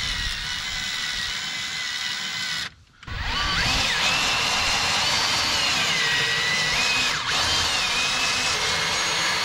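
Cordless drill turning a 1-inch speed bore (spade) bit through a UTV's plastic dash panel, its motor whine rising and falling in pitch as the bit bites. The drill stops briefly just under three seconds in, then starts again.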